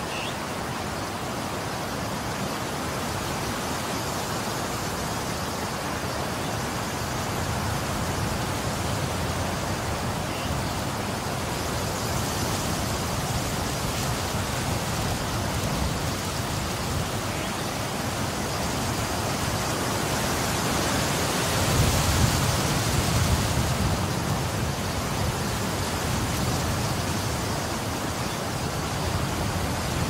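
Strong wind blowing, a steady rushing noise with low gusts buffeting the microphone, the strongest gust about two-thirds of the way in.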